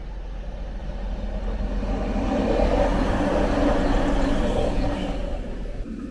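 DB Class 612 diesel multiple unit approaching and passing close by, its diesel engines and wheels on the rails making a rumble. The rumble grows louder to a peak about three to five seconds in, then falls away.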